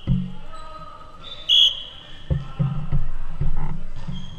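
Echoing indoor volleyball game noise: a sharp ball smack right at the start, a short high-pitched chirp about a second and a half in, then a denser stretch of voices and court noise building toward the end.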